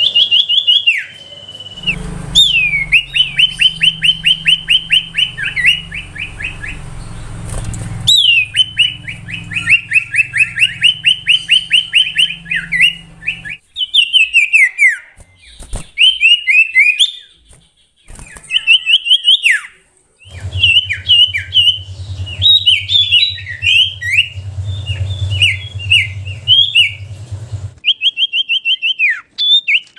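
Common iora (cipoh) singing: fast runs of repeated high whistled notes in phrases a few seconds long with short breaks, turning into more varied, choppy notes in the second half. A low hum runs under some of the phrases.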